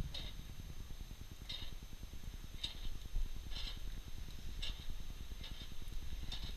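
Charcoal grill's crank handle being turned by hand, giving a short squeak about once a second over a steady low rumble.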